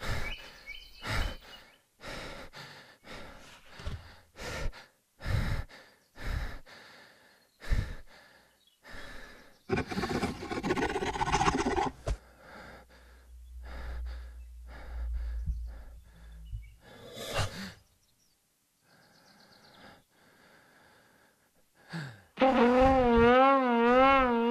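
A string of short gasps and breaths, with a low rumble in the middle. About 22 seconds in, a trombone comes in loud on one note with a wide, wobbling vibrato.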